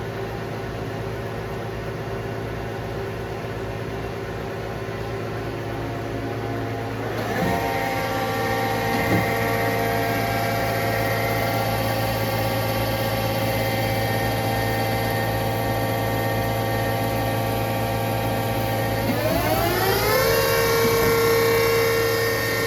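Mori Seiki Dura Turn CNC lathe running: a steady motor whine over a low hum that twice glides up to a higher steady pitch, about seven seconds in and again near the end, as the spindle speeds up. A brief knock is heard about nine seconds in.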